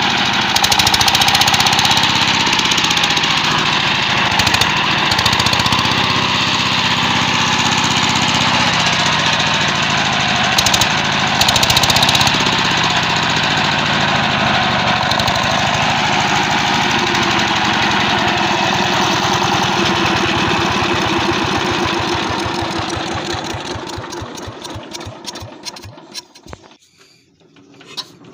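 LD 25 hp single-cylinder diesel engine running fast with a rapid, even knocking of firing strokes. Over the last few seconds it slows and nearly dies, then fires again in slow, separate puffs near the end.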